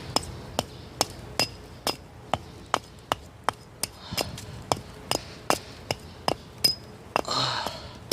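Hatchet striking a log in quick, light, even blows, about two and a half a second, each knock with a faint metallic ring, chipping the rotten bark off.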